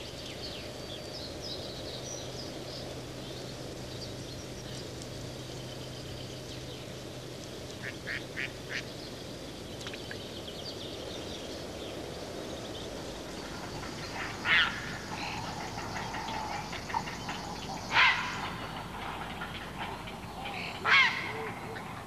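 Waterbirds calling over a steady low hiss: a quick run of short calls about eight seconds in, then three loud single calls about three seconds apart in the second half.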